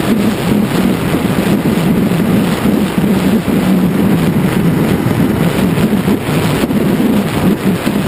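Wind buffeting a motorcycle-mounted camera, over the steady drone of a BMW F800GS's parallel-twin engine while riding along.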